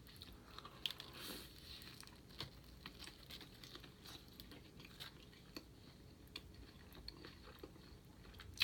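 A person chewing a mouthful of food close to the microphone, faint, with many small irregular clicks and crunches.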